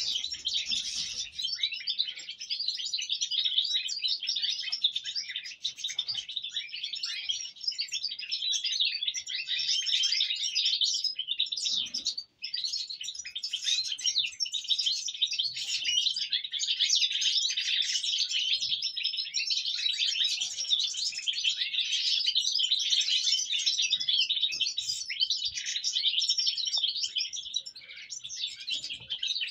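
European goldfinches twittering and chirping, many birds at once in a dense, continuous chorus, with a brief break about twelve seconds in.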